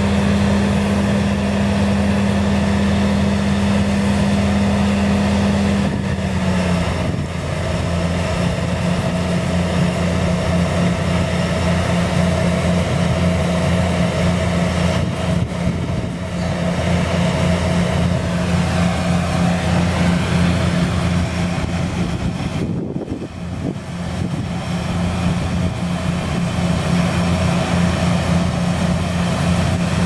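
New Holland combine harvester running steadily at work in wheat, a loud continuous engine and machinery hum. Its pitch drops slightly about seven seconds in.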